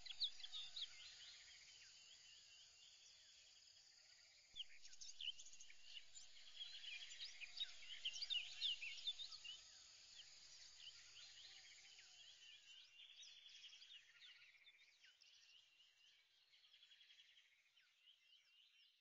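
Faint birdsong: many quick chirps and whistles, with a few rapid pulsed trills mixed in, growing fainter over the second half.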